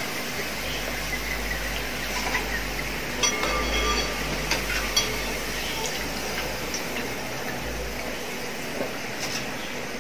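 Potato slices sizzling as they deep-fry in hot oil, with a metal skimmer clinking against the steel pot a few times between about three and five seconds in.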